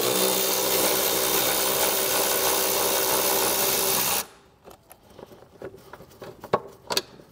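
Cordless power ratchet spinning out a 13 mm bolt through a long socket extension: a steady motor whine for about four seconds that stops abruptly, followed by a few faint clicks.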